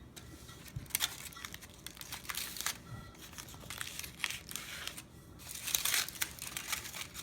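Aluminum foil crinkling as it is unwrapped and pulled open by hand, in irregular bursts of crackling.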